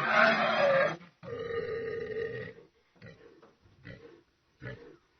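Creature vocal sound effects in the style of the Predator and Alien films: two harsh, drawn-out growls, then short, quieter grunts about once a second.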